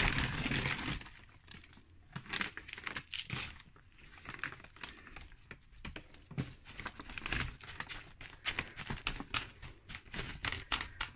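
Hands scooping potting soil and pressing it into a plastic flower pot, with crinkling and rustling of the soil bag and newspaper. A louder rustle in the first second, then irregular small crackles.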